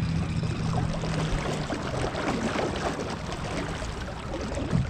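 Square-back canoe under way on electric trolling motor power: water rushing and splashing along the hull, with the motor's low steady hum in the first second and a half.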